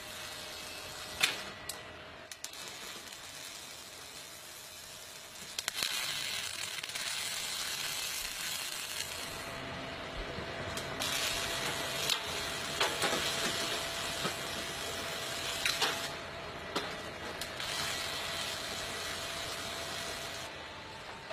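Electric arc welding sizzling and crackling in several runs of a few seconds each, with short pauses between, over a faint steady factory hum. A sharp click comes about a second in.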